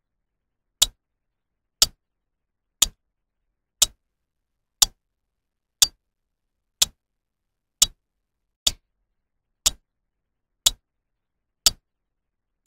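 A clock ticking: one sharp tick about every second, with silence between.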